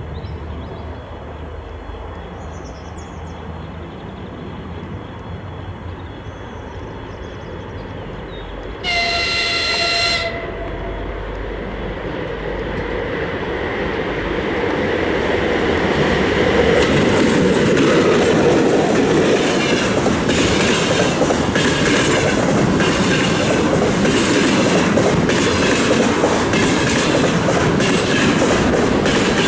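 VL11 electric locomotive with a container freight train approaching, its rumble growing steadily louder. It sounds one horn blast of a little over a second about nine seconds in. From about sixteen seconds the wagons pass, their wheels clattering in a steady rhythm over the rail joints.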